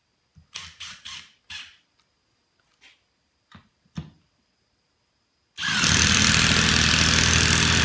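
A Makita brushless impact driver hammering loudly and a Milwaukee M18 Fuel Surge hydraulic driver running alongside it, both driving 4-inch screws into treated lumber at the same time. The impact's fast rapping starts suddenly about two thirds of the way in and covers the quieter hydraulic Surge. Before that there are a few short knocks and rattles.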